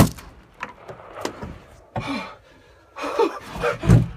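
A single shotgun blast right at the start, followed by a jumble of knocks and rustling from movement, with a couple of louder thumps near the end.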